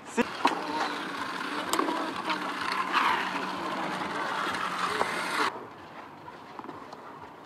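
Steady outdoor background noise with a few faint voices and scattered short knocks. It cuts off abruptly about five and a half seconds in, leaving quieter ambience.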